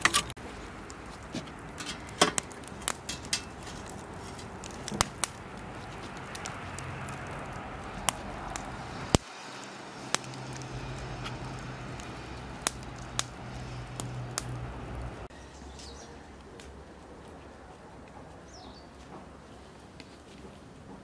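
Crackling and sharp scattered clicks from a wood fire and the metal tongs loading burning embers into a samovar's firebox, thinning out after about nine seconds. Near the end it is quieter, with a few faint bird chirps.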